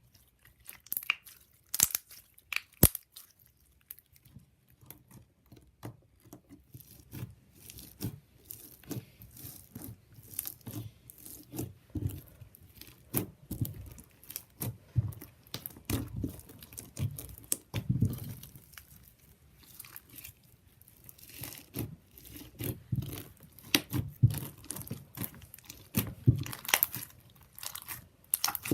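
Hands squishing, stretching and poking slime, giving an irregular stream of crackles, sticky pops and soft squelches.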